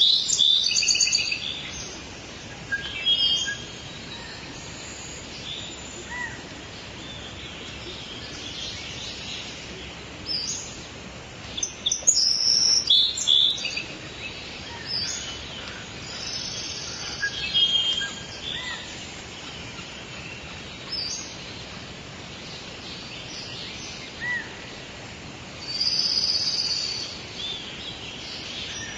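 Several birds singing and calling over a steady background hiss, with short chirps and trills coming every second or two and louder bursts near the start, about halfway through and near the end.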